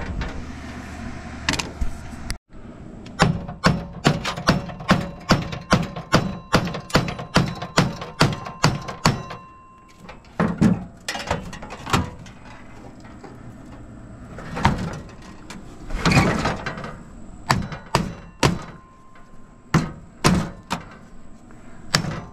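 Repeated sharp knocks and strikes on the metal of an air-conditioner unit as it is broken down for scrap. A quick run of about two or three blows a second is followed by scattered strikes, with a brief break a little over two seconds in.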